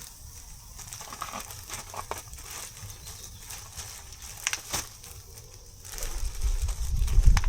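Burger and chips sizzling on a camp grill, a steady high hiss, with a few sharp clicks and knocks. A loud low rumble comes in about six seconds in.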